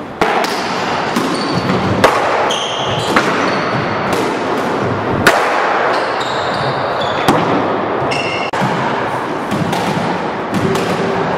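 Racquetball rally: sharp pops of the hollow rubber ball off racquets, walls and the hardwood floor, roughly one a second at uneven intervals and echoing in the enclosed court. Short high sneaker squeaks on the wooden floor come in between, over a steady background hiss.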